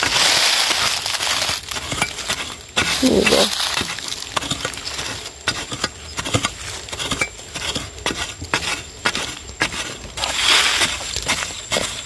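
Long-handled metal digging spade striking and scraping into hard, dry, crumbly soil again and again, in irregular strokes, with the crunch and rustle of loosened earth and dry leaves. Longer scraping, crumbling passes come at the start, about three seconds in, and near the end.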